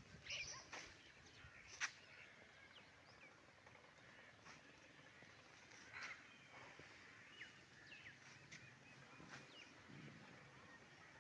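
Faint outdoor ambience with scattered bird chirps and calls, and a few sharp clicks in the first two seconds.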